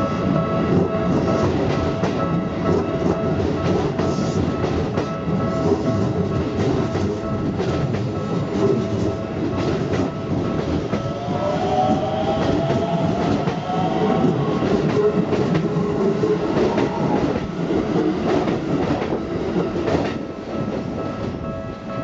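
Keisei 3700-series electric train passing over a level crossing: a steady rumble with many sharp wheel clacks over the rail joints. The crossing's warning bell sounds a steady tone throughout. Around the middle there is a rising whine, and the rumble eases off in the last couple of seconds as the train clears.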